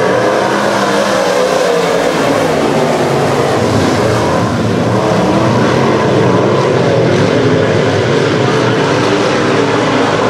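A pack of dirt-track modified race cars racing on a dirt oval, several engines running hard at once, their pitches rising and falling as the cars accelerate and pass.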